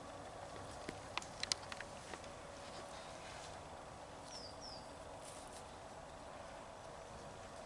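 Quiet rural outdoor background with a quick cluster of sharp clicks about a second in, and two short, high, falling bird chirps a little past the middle.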